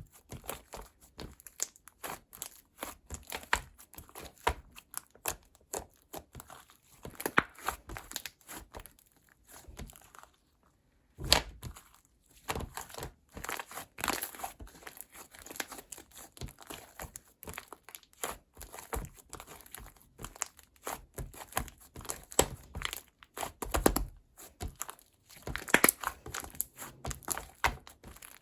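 Slime being squished and stretched by hand, a continuous run of crackling, popping clicks with a short pause about ten seconds in.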